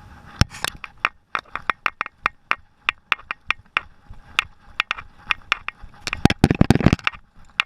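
Airsoft guns firing: a string of sharp single shots, a few a second, with a quick dense burst about six seconds in.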